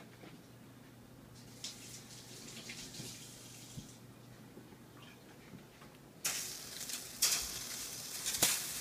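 Water hissing and spattering as drops are flicked into a preheating enamelled cast-iron braiser, the water-drop test of whether the pan is hot enough to cook on. A brief faint hiss comes first, then a louder spell of hiss with sharp spits from about six seconds in.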